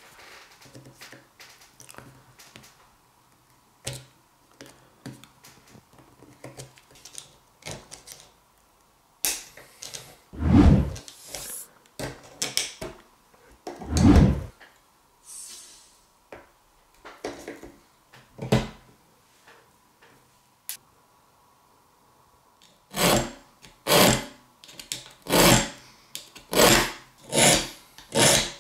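Hand tools taking apart a small old Mora knife: light metal clicks and scrapes, then two louder scraping crunches as pliers work the peened tang end at the butt of the handle. From a little past two-thirds of the way in, a small hand file scrapes the steel in regular strokes, about one a second.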